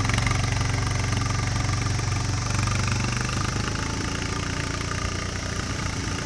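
ATV engine running steadily as it tows a dump cart loaded with soil, gradually getting quieter.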